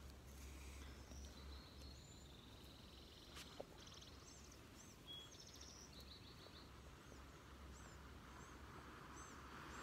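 Near silence outdoors, with faint small birds chirping and trilling again and again.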